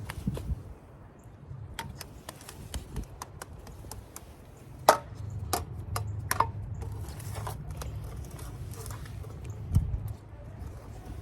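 Toy trucks and dirt being handled in play: scattered small clicks, knocks and scrapes, a few sharper knocks in the middle, over a low steady rumble.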